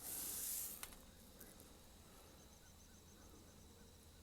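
A short rustling hiss in the first second, then quiet with a faint, rapid run of high chirps in the middle.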